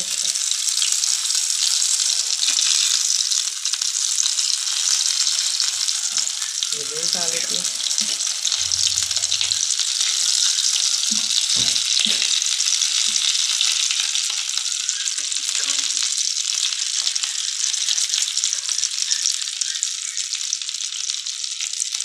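Egg-coated potato tikkis shallow-frying in oil in a frying pan over a medium flame: a loud, steady sizzle. A few light clicks near the middle come from metal tongs turning the patties.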